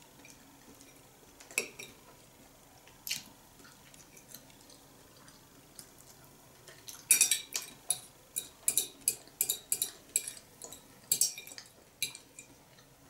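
A small metal child's fork clinking and scraping against a ceramic plate: a couple of single clinks, then a quick run of clinks in the second half.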